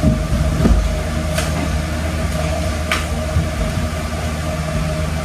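A steady mechanical hum with a constant tone above it, and two faint light clicks about a second and a half and three seconds in.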